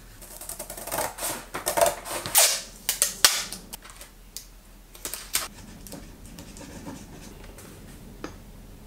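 Cardboard pieces being handled and worked on a desktop: a rapid, irregular run of sharp clicks, knocks and short scrapes for the first five seconds or so, then only a few scattered clicks.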